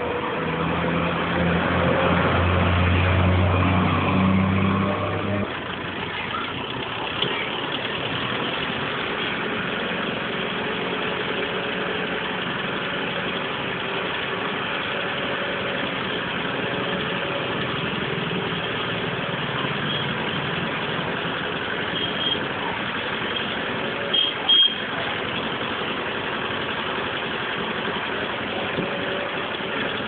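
Heavy diesel engine running, louder and deeper for the first five seconds or so, then idling steadily. A short sharp sound cuts in about 24 seconds in.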